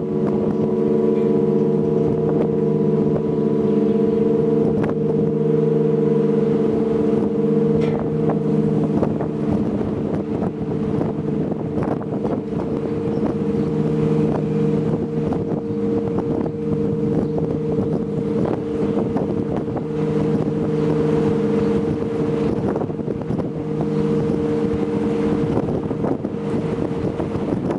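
Russian-style bell ringing (zvon) on a belfry of many bells: quick, continual strikes of the smaller bells over the long, steady hum of the larger ones.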